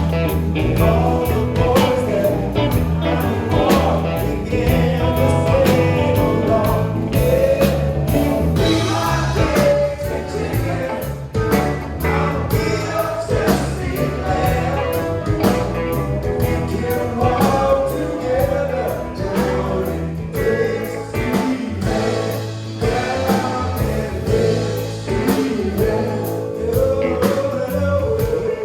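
Live band playing a blues-rock song, with several voices singing together over drums, bass and guitar.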